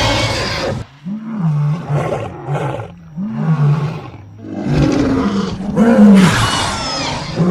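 Dinosaur call sound effects from ceratopsians and dromaeosaurs. A loud roar opens the stretch, then comes a run of short, low bellows that rise and fall in pitch, and the calls grow louder and harsher in the second half.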